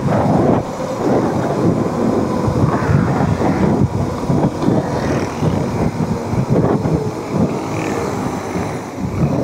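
Wind buffeting the microphone in irregular low gusts during a road ride, with a steady rush of motion noise.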